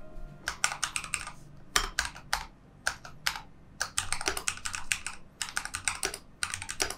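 Typing on a Ducky One 2 SF mechanical keyboard: quick runs of key clicks broken by short pauses.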